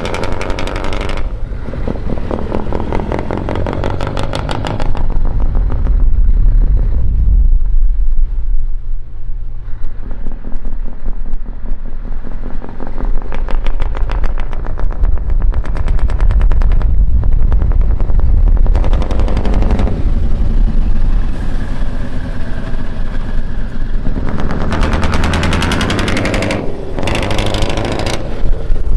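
Scania 164L 480 V8 truck engine running through an open exhaust pipe, with a rapid staccato exhaust beat as the truck is driven. Its note swells and fades several times.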